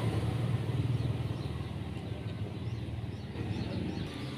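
Low, steady engine hum that slowly fades away, from a motor running somewhere other than the engine on the bench.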